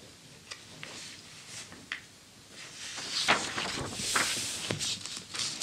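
Old magazine pages turned by hand: a few faint paper taps, then a stretch of rustling and crinkling paper from about three seconds in as the page turns over and is smoothed flat.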